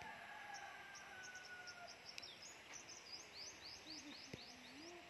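Faint outdoor ambience with birds chirping: a run of quick, high, repeated chirps through the middle, and a few drawn-out whistled notes.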